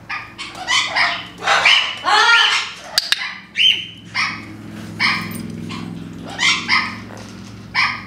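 Parrots calling: a series of about a dozen short calls in quick succession, over a steady low hum.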